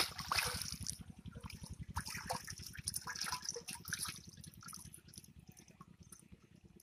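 Water splashing and sloshing in a large metal pot as hands work in it, a quick run of splashes and drips that is loudest at the start and dies away after about four seconds. A steady low pulsing hum runs underneath.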